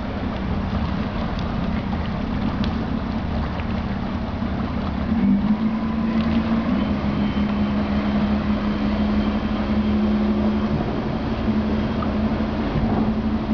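Motor of a classic varnished wooden speedboat running as it pulls away over the water, a steady drone that rises a little in pitch and gets a little louder about five seconds in, then holds steady.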